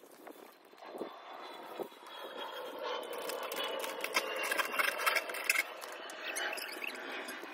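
Water running from a garden hose onto stone steps while a straw broom scrubs them. The water gets louder about two seconds in, with short scratchy broom strokes over it.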